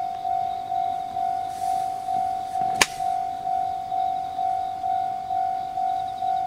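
Japanese railway level crossing alarm ringing: a single bell-like ding repeated about twice a second, each fading before the next, the warning that a train is approaching or passing. A sharp click a little under three seconds in.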